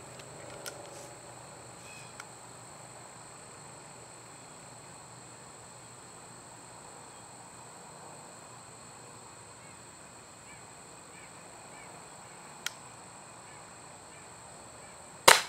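A .177 break-barrel air pistol fires once near the end: a single sharp shot, by far the loudest sound. Insects chirr steadily throughout in high, even tones, with a few faint clicks before the shot.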